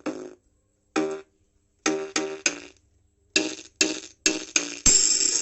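Music played through a speaker driven by channel B of a 3055-transistor power amplifier, with the volume at full. It comes as short bursts of notes with gaps between them, turning denser and louder about two-thirds of the way in. The output sounds choked and weak, a sign of the faulty channel: it has 'completely sat down', as if the speaker were stuck.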